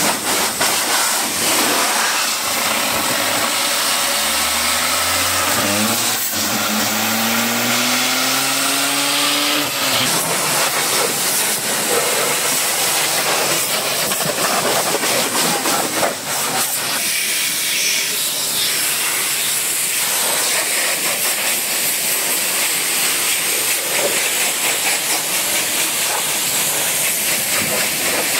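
High-pressure water jet from a pressure washer hitting a car's bumper, wheel and windows: a loud, steady hiss. From about four seconds in, a hum of several tones climbs in pitch beneath the spray and cuts off at about ten seconds.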